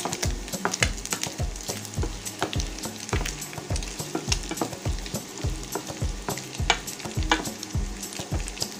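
Wooden spatula stirring chopped chicken gizzards in a stainless steel pan, scraping and clacking against the metal with many irregular clicks, while the meat sizzles steadily as it fries.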